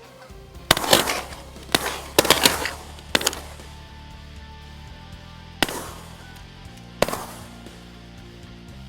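A volley of shotgun shots from several hunters firing at geese. Six or seven shots come in quick succession in the first three seconds, then two more come a second and a half or so apart, each with a short echo.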